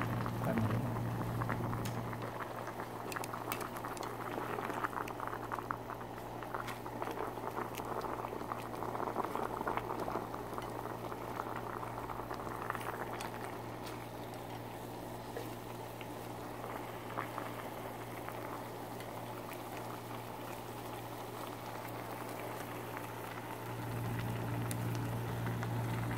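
Ramyeon broth with noodles and sliced potatoes boiling in a stainless saucepan on a gas burner: steady bubbling with many small pops. A low steady hum runs under it, louder near the start and for the last couple of seconds.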